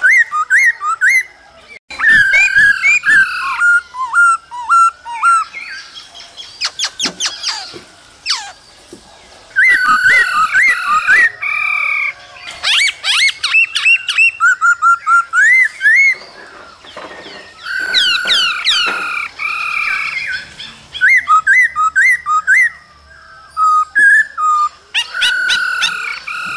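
Male black-throated laughingthrush singing a long, varied song of loud whistled phrases: slurred up-and-down notes, quick runs of repeated notes and fast downward-sweeping trills, with short pauses between phrases.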